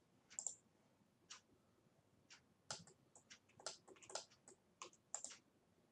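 Faint, irregular clicks of a computer mouse and keyboard, a few at first and then a quicker run of them from about halfway through.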